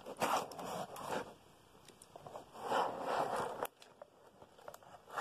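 Taped cardboard box being cut and torn open: several rasping, zipper-like strokes of packing tape and cardboard, with a sharp click about three and a half seconds in.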